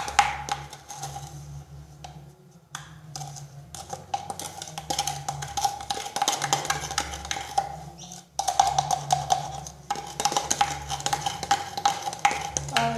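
Rapid clinking and scraping of a utensil in a container as sugar is worked into shampoo to make slime, with short pauses about two and a half and eight seconds in.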